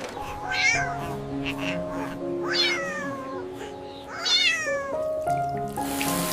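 Three short, high animal-like calls, each sliding down in pitch, about two seconds apart, over light background music.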